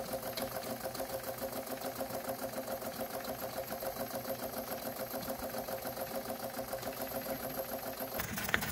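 Jensen 50 toy steam engine running steadily under steam at about 7.5 psi, a fast, even mechanical clatter from the reciprocating engine. It stops abruptly near the end.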